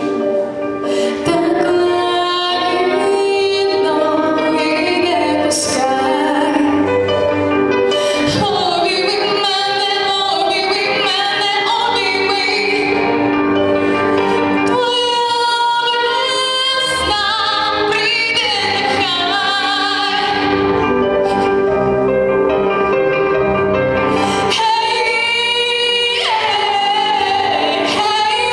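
A female vocalist singing a song with musical accompaniment, holding long notes with vibrato.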